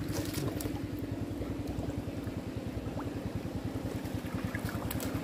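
Small boat's engine running steadily at low speed, a rapid even putter with a low hum.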